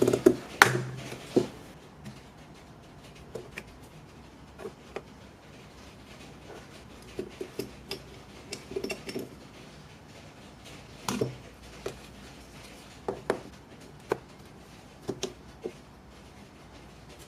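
Scattered small clicks, taps and light clatter of hard metal and plastic parts being handled, with a few sharper knocks in the first second and a half.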